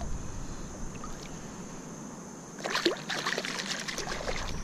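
Water splashing beside a kayak, starting suddenly about two and a half seconds in with a sharp splash, then a second or so of lighter sloshing.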